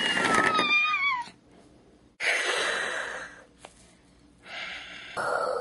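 A child's voice making dragon noises for a plush toy dragon: a high screech falling in pitch, then two breathy, hissing roars.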